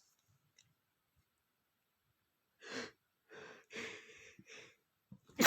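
A person's quick, gasping in-breaths, four in a row, building up to a sneeze, which bursts out loudly right at the end.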